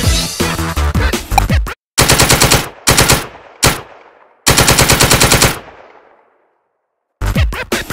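Hip hop music breaks off and recorded machine-gun fire comes in: a few short bursts, then a longer burst of about nine shots a second that echoes away. After a second of silence the music comes back near the end.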